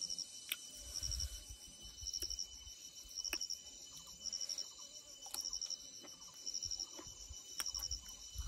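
An insect, cricket-like, chirping in short high pulsed trills about once a second, over soft low thumps and a few light clicks.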